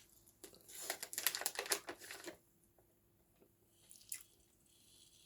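Close-up chewing of a mouthful of meat-free barbecue bites: a burst of wet, clicky chewing noise for about two seconds, then a single click near the end.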